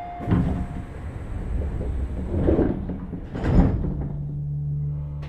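Sliding doors of a Tobu 30000-series commuter train closing: a knock shortly after the start and two heavier clunks about two and a half and three and a half seconds in. A steady low hum starts near the end.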